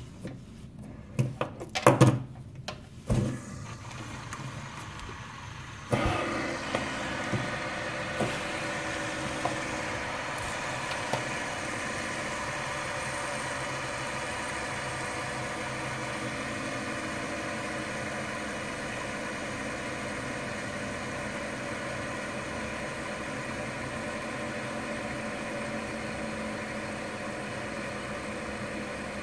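Several metal-bodied F026 fidget spinners on ball bearings, flicked into motion by hand after a few clicks and knocks of handling. From about six seconds in they whir together in a steady hum that holds even to the end.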